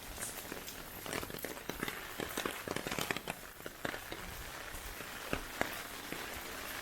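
Heavy typhoon rain falling steadily, with many sharp, close drop impacts crackling over the hiss, thickest in the first few seconds, and two louder hits near the end.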